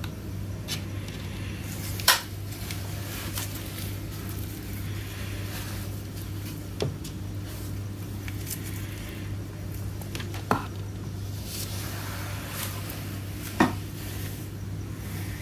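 Small hard-plastic toy furniture and a doll being handled and set down on a hard surface: scattered light clicks and taps, four of them sharper, the sharpest about two seconds in, over a steady low hum.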